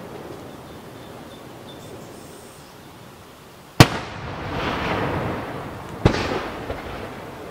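Aerial fireworks shell bursting with a single sharp boom about four seconds in, followed by a long rumbling tail. Another sharp bang follows about two seconds later.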